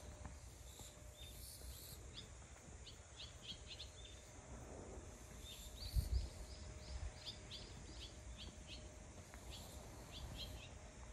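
A small bird calling in quick runs of short, high, falling chirps, several runs in a row, over faint outdoor background noise, with one low thump about six seconds in.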